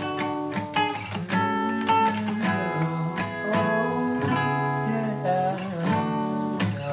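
Acoustic guitar strummed and picked, playing the intro to a song before the singing begins.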